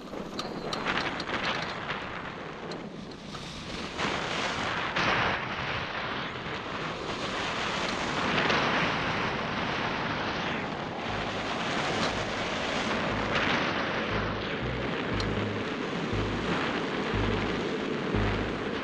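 Wind rushing over the microphone of a camera mounted on a hang glider during launch and flight: a steady rush that swells and eases in gusts. A low, repeating bass line from a music track comes in about eleven seconds in.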